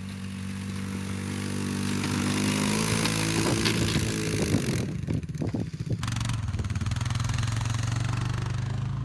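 Engine of a snowplowing vehicle running, with a hiss over it for the first few seconds. The pitch and level waver about halfway through, then the engine runs steadily.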